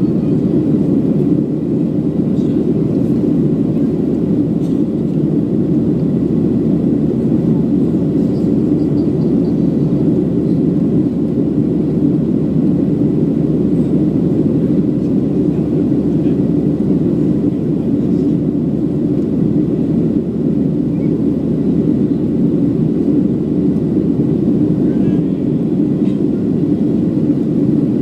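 Cabin noise inside a Boeing 737-700 climbing out: the steady, deep rush of its CFM56-7B turbofans and the airflow over the fuselage at climb power, with a faint high whine above it.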